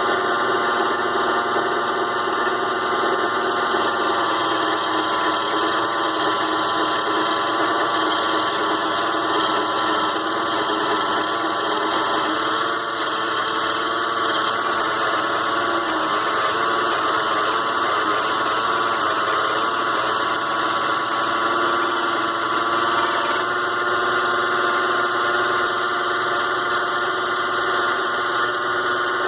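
ZhouYu 6-in-1 mini lathe running with a steady whine from its motor and gearing while the tool takes a turning pass on aluminium stock.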